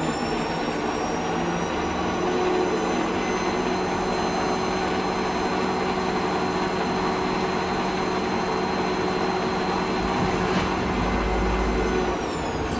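Bernardo Profi 550 WQV mini metal lathe running with no cut: its 750 W variable-speed motor and spindle whine. The whine rises in pitch over the first two seconds as the speed is turned up to about 980 rpm, the top of the low range. It holds steady, then starts to drop near the end as the speed is turned down.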